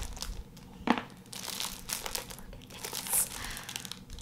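Paper wrapping crinkling and rustling as a wrapped gift is unwrapped by hand, with one sharp tap about a second in.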